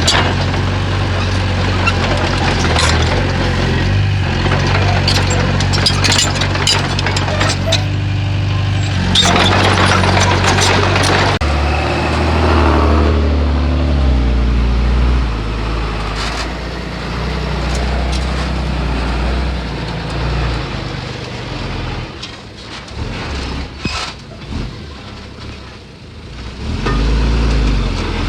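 Heavy diesel machinery engine running under load, with frequent clanks and knocks over it; the engine note drops lower about a third of the way in and eases off for a few seconds before picking up again near the end.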